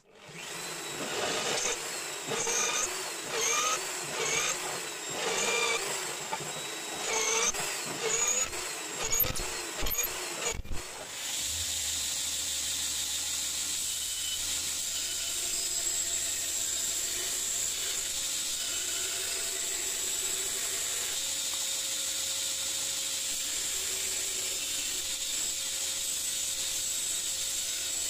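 Bench drill press with a countersink bit cutting into the steel tang of a cleaver in a run of short, uneven surges. About eleven seconds in, this gives way to a belt grinder running steadily as the cleaver blade is ground against the belt.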